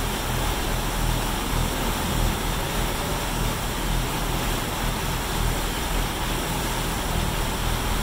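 A sportfishing boat's engines running steadily at trolling speed, a low drone under the rushing of the churned-up wake water.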